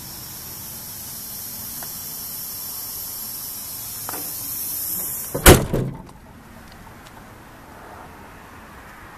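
The cab door of a 1998 Mack RD688S truck slams shut about five and a half seconds in: one loud bang with a quick second knock after it. Before the bang there is a steady hiss, which stops when the door shuts.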